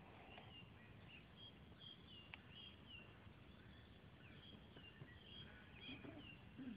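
Faint birdsong: many short chirps and whistles from small birds, over a low, steady outdoor background noise.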